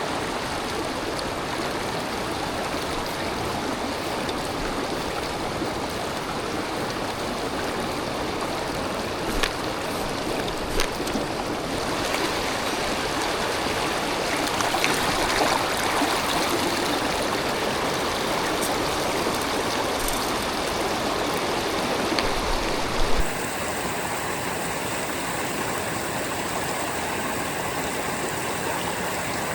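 Mountain stream running steadily, a continuous wash of water. There are a few faint knocks about a third of the way in. A short thump comes about three-quarters of the way through, where the water sound changes abruptly.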